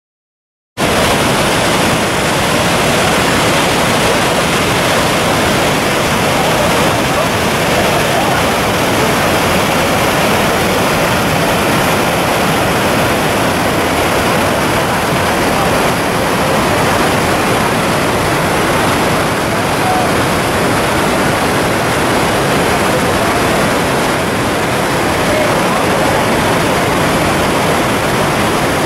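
The Rhine Falls, a large waterfall on the Rhine at Schaffhausen: a loud, steady rush of falling and churning water, cutting in abruptly just under a second in.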